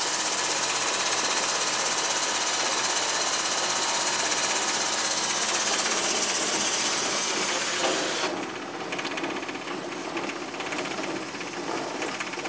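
Hemp bud stripping machine running with a loud, rapid mechanical rattle. About eight seconds in the sound drops suddenly to a quieter, lighter rattle.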